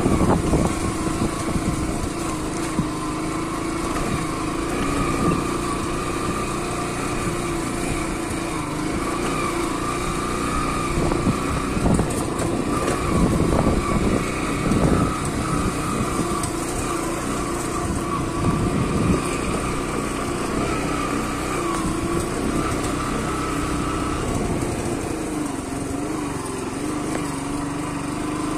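Small motorcycle engine running at a steady, low speed while riding a rough, muddy gravel road, its pitch wavering slightly as the throttle shifts. Knocks and rattles from the bumps come in a cluster around the middle.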